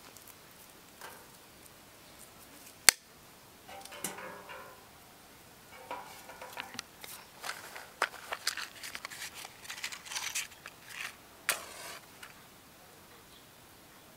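A dry stick snaps once, sharply, about three seconds in. Then comes a run of rustling with many small clicks and scrapes, from hands at cloth and at a pile of dry kindling sticks.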